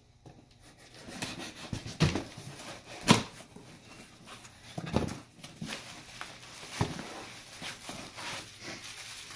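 Cardboard boxes being handled and opened: a knife scraping through packing tape and cardboard flaps rubbing and rustling, with a few sharp knocks as boxes are bumped and set down, the loudest about three seconds in.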